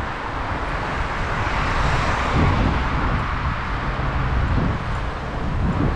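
Street traffic: a car passing by, its noise swelling about two seconds in and fading, over a steady low rumble.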